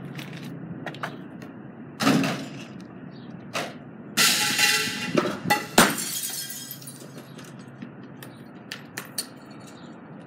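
A thud about two seconds in, then a loud crash of glass shattering about four seconds in, with a sharp impact a second later and small clinks after it.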